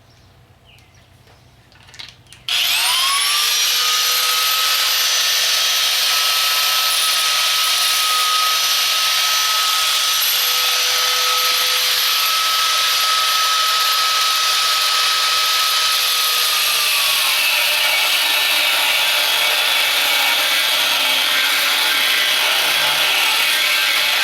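Electric grinder, slow to start, spinning up about two and a half seconds in and running loud at full speed against the steel of the forks, its whine holding steady, then sagging and picking up again near the end.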